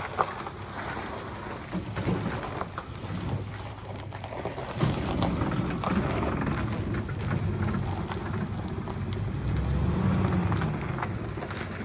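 A machine engine running with a low, steady rumble that swells a little partway through, over a scatter of small crackles and ticks like crushed-concrete gravel crunching.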